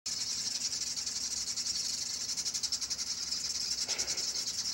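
A steady, high-pitched chirring chorus of small animals, finely and evenly pulsed.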